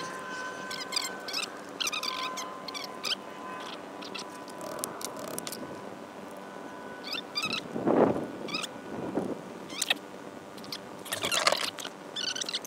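Birds chirping over and over, with a faint steady hum underneath. A louder scrape comes about eight seconds in, from the steel bar stock being marked up.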